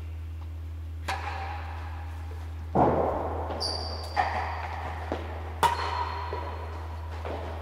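A real tennis rally: the solid ball knocking off rackets, walls and floor of the indoor court, a series of sharp knocks with the loudest about three seconds in, each echoing in the hall.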